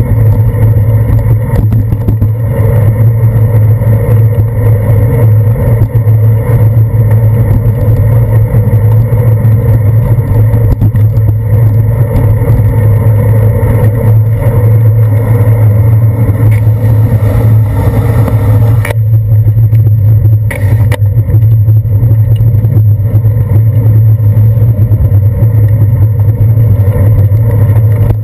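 Loud steady low rumble of wind and road vibration picked up by a handlebar-mounted action camera on a moving bicycle. A lighter hiss above it cuts out about two-thirds of the way through.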